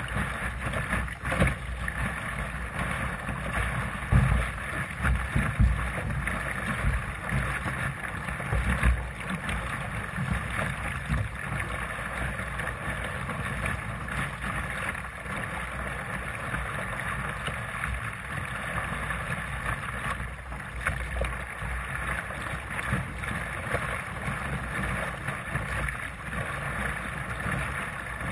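Water rushing and splashing along the hull of a Sunfish sailing dinghy moving under sail, with wind buffeting the deck-mounted camera's microphone; the low buffeting surges louder a few times in the first ten seconds.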